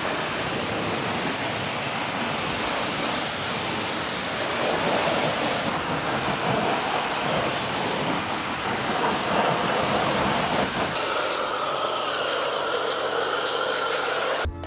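Pressure washer spraying water: a loud, steady hiss whose tone shifts twice as the jet moves, cutting off suddenly near the end.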